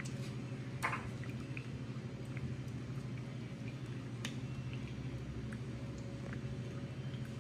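Scattered small clicks and taps of hand work on a 4L60E transmission's valve body as the PWM solenoid is taken out, over a steady low hum.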